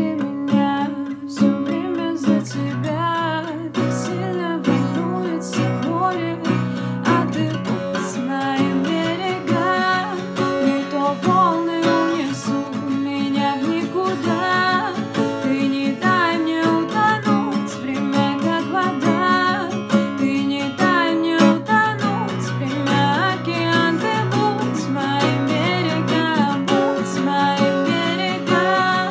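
A woman singing a Russian pop ballad, accompanying herself on an acoustic guitar played in steady chords.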